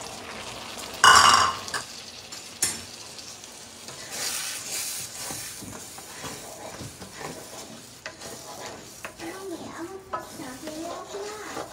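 Beaten eggs with diced vegetables sizzling in a hot wok while a wooden spatula stirs and scrapes them into scrambled eggs. A loud, sharp knock about a second in is the loudest sound, and there is a smaller click shortly after.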